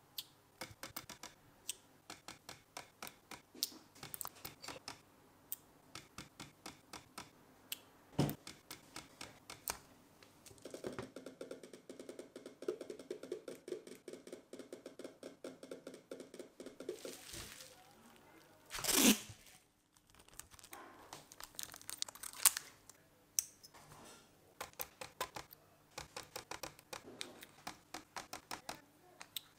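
Battery spot welder firing through a handheld copper-electrode pen, a series of sharp snaps in quick clusters as nickel strip is welded onto the cells of a lithium-ion battery pack to make the series connections. A stretch of rustling runs through the middle, and just after 19 seconds comes one louder, longer crackling burst.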